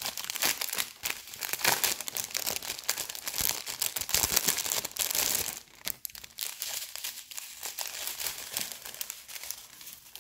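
Small clear plastic bag of diamond painting drills crinkling and crackling as it is handled and opened, louder in the first half and softer after about six seconds.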